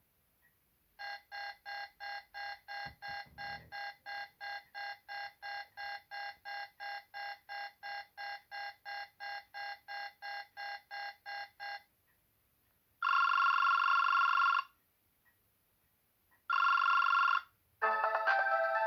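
BlackBerry 7100v ringtones playing from the phone's speaker one after another. First a pitched electronic beep repeats about three times a second for some ten seconds, then come two short blasts of tone, and near the end a melodic tune begins.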